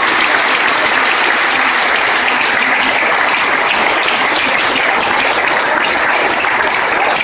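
Audience applauding steadily in response to a speaker's applause line.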